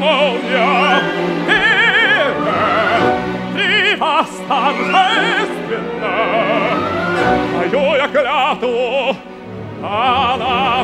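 Operatic tenor singing in phrases with a wide vibrato over a full orchestra playing storm music, with rising runs in the orchestra between his phrases.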